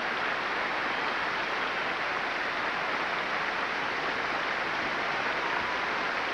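Large audience applauding steadily: dense, sustained clapping from a packed theatre, with no let-up.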